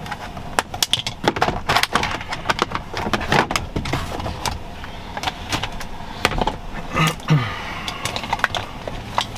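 Irregular clicks, taps and knocks of hand tools and plastic dashboard trim being handled around the steering column of a Chevrolet pickup during an instrument cluster swap.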